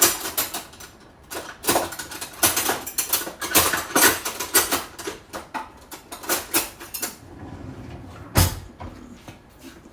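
Kitchen clatter: a quick run of clicks and knocks as things are handled on the bench, thinning out after about seven seconds, then a single heavier thump near the end.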